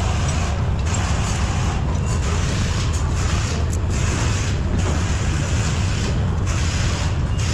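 Steady low rumble with a constant hiss of workshop background noise; no distinct tool strikes.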